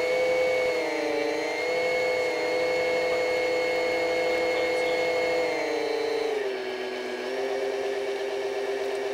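Electric motor and propeller of an RC plane running as a steady whine, heard on board. About six seconds in the pitch steps down as the return-to-home autopilot cuts the throttle back.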